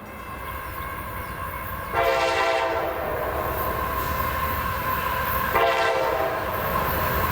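A CSX freight locomotive's air horn sounding twice, first a blast of about a second, then a shorter one a few seconds later. Underneath, the rumble of the approaching train grows louder, and a steady high tone holds from the first blast onward.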